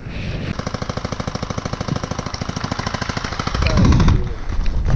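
Airsoft electric gun firing a long full-auto burst: a fast, even rattle of many shots a second that runs for about four seconds. A louder low rumble joins it near the end.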